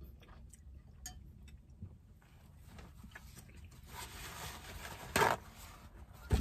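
Faint chewing and small clicks, then a paper towel rustling as it is pulled out and handled, with one louder sharp crackle about five seconds in.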